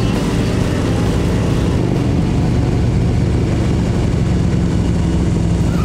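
Motorcycle engines running steadily at highway cruising speed, a low, even drone.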